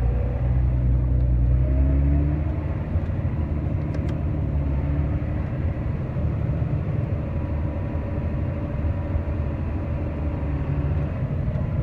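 Farm vehicle's diesel engine running steadily with a low rumble, easing slightly about two seconds in.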